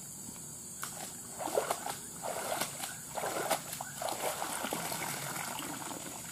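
Creek water splashing and sloshing as a mesh bag is dunked and swished in the shallows, in several bursts from about a second and a half in, then water streaming off the bag as it is lifted out.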